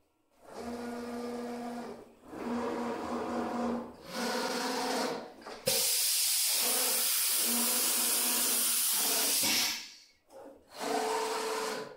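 The 5.5 kW water-cooled spindle of a 4-axis CNC router running with a steady pitched whine, in stretches of about a second and a half broken by short gaps. About halfway through, a loud steady hiss starts suddenly and lasts about four seconds before the whine returns near the end.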